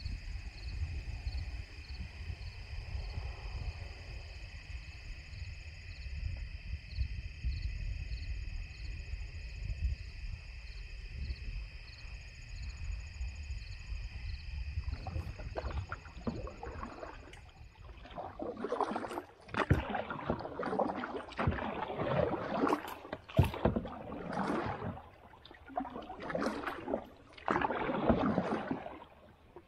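A steady high-pitched trilling with a regular pulsing note over a low rumble gives way, about two-thirds of the way in, to canoe paddle strokes splashing in the water, a loud irregular stroke every second or two.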